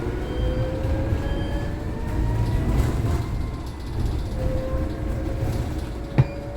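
Huade electric low-floor bus's traction motor whining over road rumble, its pitch slowly rising as the bus gathers speed. A single sharp knock about six seconds in.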